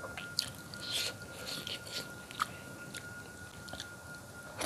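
Chewing and biting into a curried jumbo patin (pangasius catfish) head eaten by hand, with scattered soft, short wet mouth clicks.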